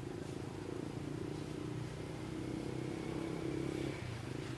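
A steady low engine drone that shifts slightly in pitch, with a faint thin whistle in the middle.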